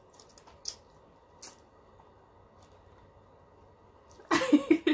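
Quiet pause in a meal with a couple of faint, short clicks of eating, then a voice starts up near the end.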